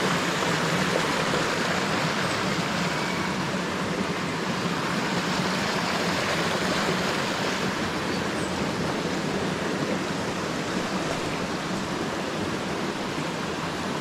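Rocky stream rushing over small cascades: a steady, even rush of water.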